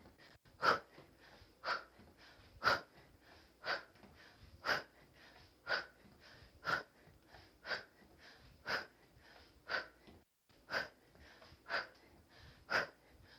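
A woman's short, forceful exhalations, one with each punch, at an even pace of about one a second: the sharp breath-outs of a kickboxer throwing repeated hooks.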